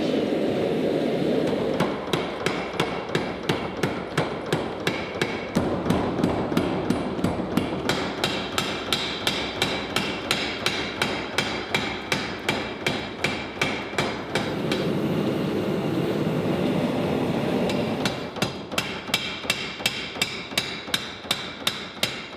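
Power hammer striking a hot Damascus steel billet in rapid, evenly spaced blows to draw it down, over a steady rumble. The blows stop for a few seconds past the middle, then start again.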